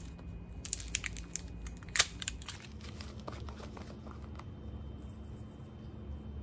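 Gloved hands working the screw lid off a plastic jar of powdered cleaner: the glove crinkles against the jar, with scattered small clicks and one sharp click about two seconds in, then a faint rustle.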